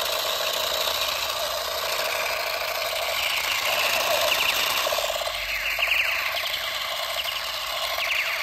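Battery-powered toy pistol firing: a fast, continuous mechanical rattle with electronic effects, including quick falling sweeps about five seconds in and again near the end.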